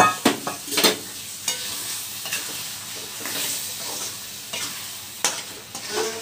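Steel spatula scraping and knocking against a steel kadai as boiled potato pieces are stirred into a thick masala that sizzles over the gas flame. The sharpest knocks come in the first second and again about five seconds in.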